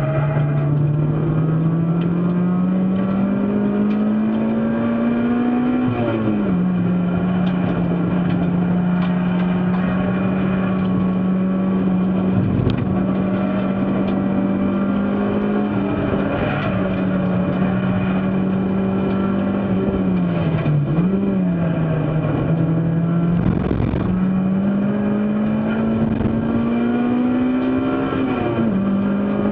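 Race car engine running hard at racing revs. Its note climbs steadily through a gear, then drops sharply at an upshift about six seconds in and again near the end, with a brief dip and recovery a little past two-thirds through, over steady road and wind noise.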